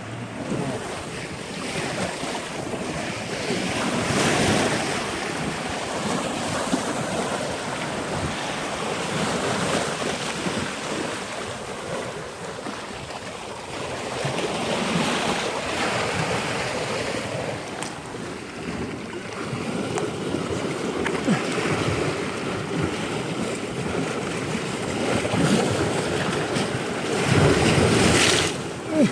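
Wind buffeting the microphone over the wash of waves on the shore: a steady rush that swells and fades every several seconds and is loudest near the end.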